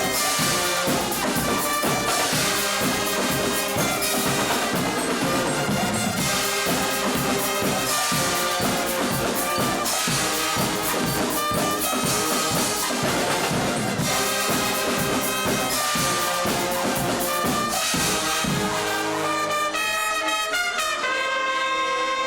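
Guggenmusik carnival band playing loudly: brass with a steady drum beat. Near the end the drums stop and the brass holds long chords, with some sliding notes.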